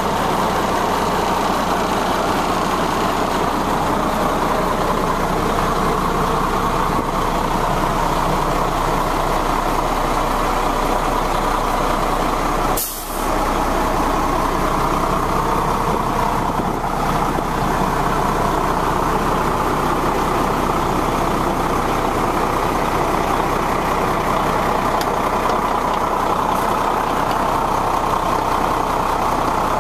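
1998 Ford F-Series water truck's engine idling steadily, heard from inside the cab, with a sharp click and a brief drop about 13 seconds in.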